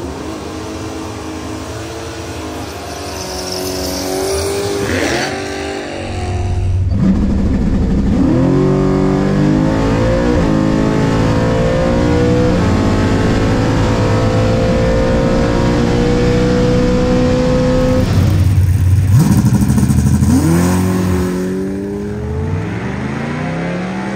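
Naturally aspirated big-block V8 of a 1969 Camaro drag car running at low revs, then revving and launching at full throttle on a quarter-mile pass. Its pitch climbs and falls back at each upshift of the Turbo 400 automatic, then climbs in one long pull.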